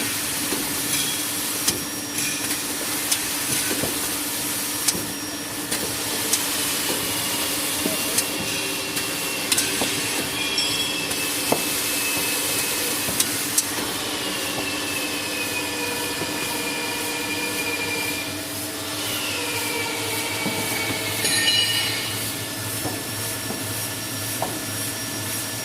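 Jumbo roll paper band saw cutting machine running: a steady mechanical hum and hiss with scattered sharp clicks and knocks. A few high whines fall in pitch, and a short rattle of rapid clicks comes about 21 seconds in.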